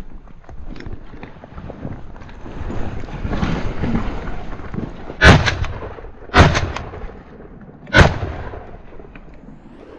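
Shotgun fired three times at a chukar, the shots about a second and a second and a half apart.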